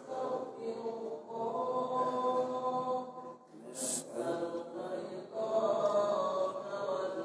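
Melodic Arabic devotional chanting, with long held notes that rise and fall, sung between pairs of tarawih prayer units.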